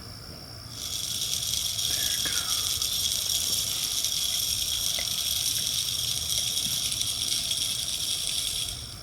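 Automatic timed game feeder going off, scattering corn in a steady hissing rattle that starts about a second in and stops abruptly near the end.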